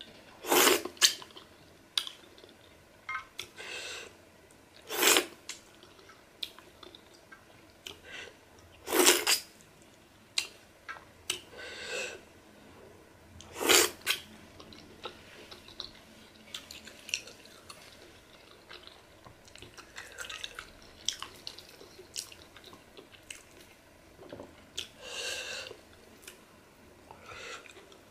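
Close-miked chewing and wet mouth sounds of a person eating pork in pepper soup with her fingers: irregular smacks and squelches, with about half a dozen louder slurping or sucking sounds, each under a second long.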